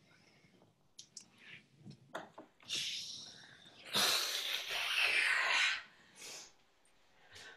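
A dancer blowing out a long, forceful, breathy exhale like a rush of wind, about four seconds in and lasting a second and a half, after a shorter, softer one a second earlier. Faint clicks and soft breathing sounds come before it.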